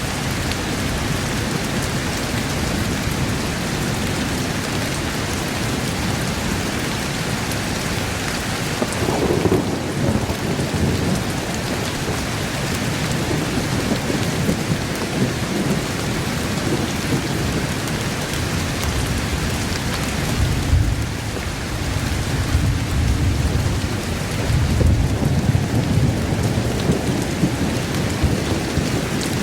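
Steady heavy rain with rolling thunder: low rumbles swell up about a third of the way in and again in the latter half.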